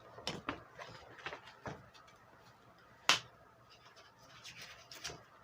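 Paper pamphlets and sheets being handled: scattered soft rustles and taps, with one sharper click about three seconds in.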